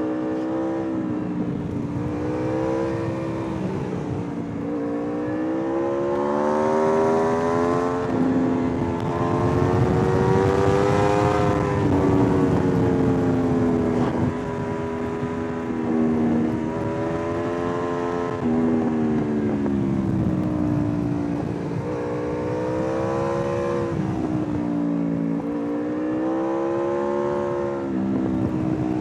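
Aprilia RSV4 R's V4 engine pulling through the gears on a twisty road. Its pitch climbs and falls again and again, with several sudden drops at gear changes and the throttle coming off for bends, over steady wind rush.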